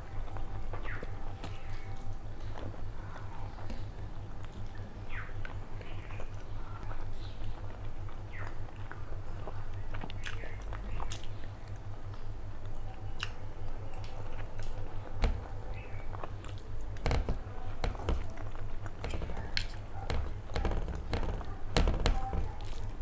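Close-miked chewing of a mouthful of rice and curry eaten by hand, with many short wet mouth clicks scattered throughout. A steady low hum runs underneath.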